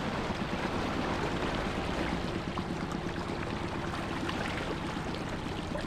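Small outboard motor idling at low throttle with a fast, even low putter, with water trickling and lapping against the aluminium hull of the tinny.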